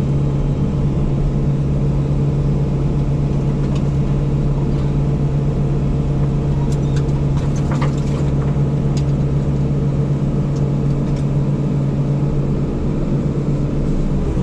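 Heavy equipment diesel engine running at a steady speed, a constant drone, with a few short clicks about halfway through.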